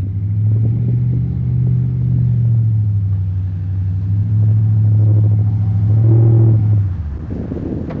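Lifted Chevrolet Silverado's Duramax V8 turbo-diesel running loud and steady as the truck reverses and pulls away, with a deep low drone that eases off about seven seconds in.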